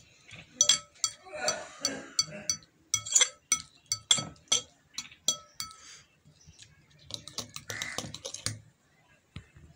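Metal fork clinking against a ridged glass bowl while beating eggs with chopped onion, tomato and green chillies. The clicks come in quick runs with short pauses, each one ringing briefly off the glass.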